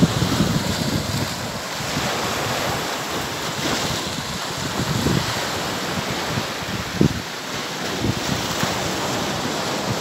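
Small sea waves washing in and swirling through boulders on a sandy shore, a steady hiss of surf. Wind buffets the microphone in uneven low gusts, one sharper gust about seven seconds in.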